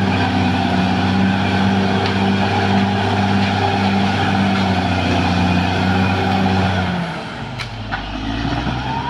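Caterpillar D6R XL bulldozer's diesel engine working hard with a steady, throbbing beat. About seven seconds in it drops to a lower, quieter note, and two sharp clicks follow.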